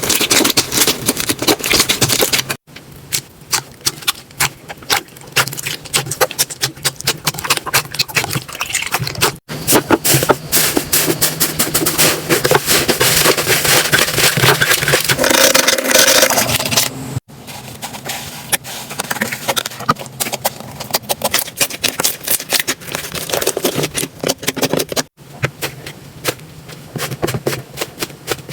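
Slime being squeezed, poked and stretched by hand, making rapid wet clicks and crackles as air pockets pop. It comes in several short takes, broken by four abrupt cuts.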